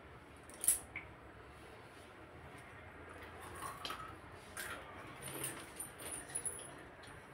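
Low room hiss with a sharp click a little under a second in, then a run of soft rustles and light clicks from a person moving about.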